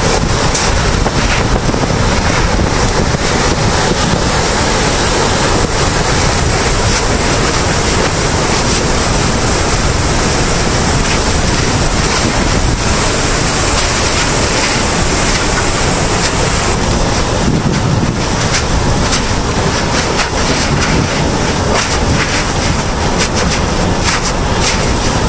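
Loud, steady rushing noise like wind or surf, with faint crackles in the upper range.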